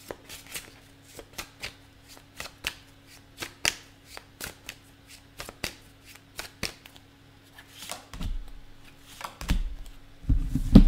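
Tarot cards being shuffled by hand: a run of quick, crisp card snaps, several a second, that stops about seven seconds in. A few low thuds follow near the end.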